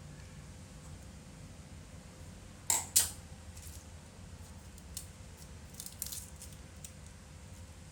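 Small metal hand tools clicking against a work surface or each other: two sharp clicks close together, followed by a few lighter ticks.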